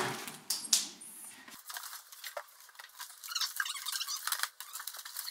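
Plastic packaging and cardboard rustling, with small clicks and knocks, as items are handled and taken out of a box. There is one sharp click less than a second in.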